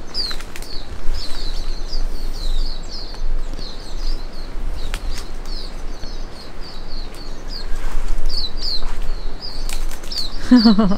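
Small birds chirping in quick, high, repeated short notes, over a low rumble of wind on the microphone, with a few rustles and knocks.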